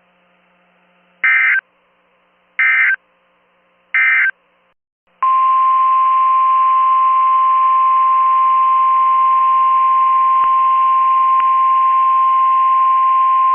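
Emergency Alert System data bursts: three short warbling SAME end-of-message bursts about a second and a half apart. After a short gap comes a single steady, loud alert tone near 1 kHz, the 1050 Hz tone used by NOAA Weather Radio.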